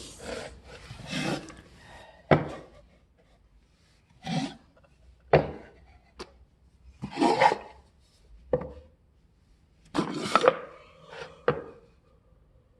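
Wooden toy blocks being handled, knocking and clattering against each other and the box in about ten irregular clacks and short scrapes.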